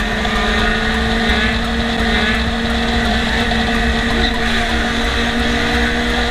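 Sport-bike engine running at a steady cruising speed, holding one even pitch, with wind and road noise from riding at highway speed.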